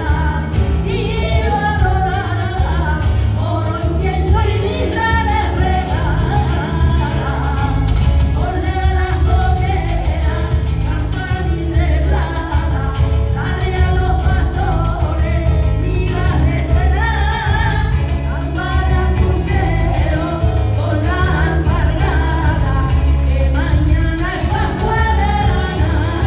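Live performance of a villancico (Spanish Christmas carol): two women's voices singing through a PA, backed by acoustic guitar and hand percussion.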